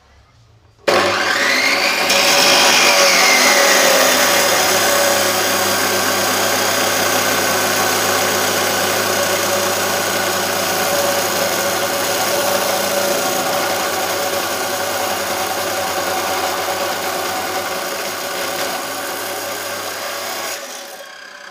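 Electric abrasive cut-off saw (chop saw) grinding through steel rebar under a steady motor hum. It starts abruptly about a second in, runs loud and steady, and stops near the end.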